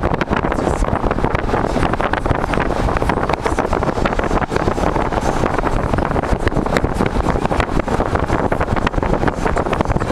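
Wind buffeting the microphone of a camera held at the open window of a moving car, a loud, steady rumble with constant crackle, over the car's running and road noise.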